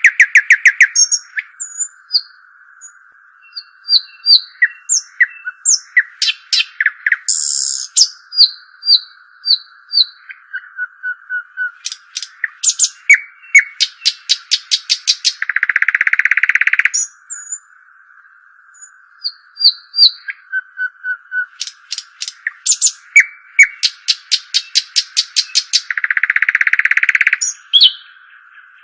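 Song of the small songbird called dukhal in Arabic: sharp chirps, fast trills and a short buzzy note, with the same sequence repeating about every ten seconds over a steady faint hiss.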